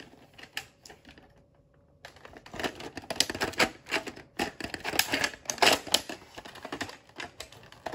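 Foam darts handled against a plastic Nerf blaster clip close up: a quick, irregular run of small plastic clicks and rattles that begins about two seconds in.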